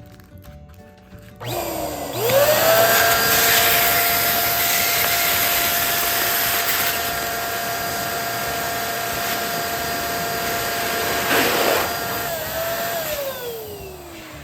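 Electric balloon pump running: its motor starts about a second and a half in, spins up to a steady whine, and holds through the inflation. About 11 seconds in there is a brief rush of noise, and near the end the motor winds down with a falling pitch.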